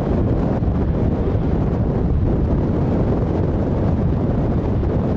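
Westland Sea King helicopter hovering low and moving slowly sideways: steady heavy rotor and twin Gnome turboshaft noise, with wind buffeting the microphone.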